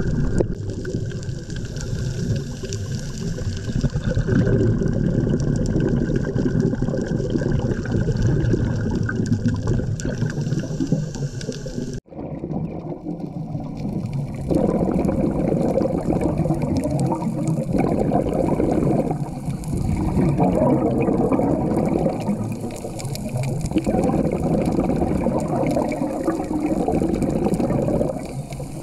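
Muffled underwater noise picked up by a scuba diver's camera: a steady low rush that cuts out sharply about twelve seconds in, then comes back in surges every two to three seconds.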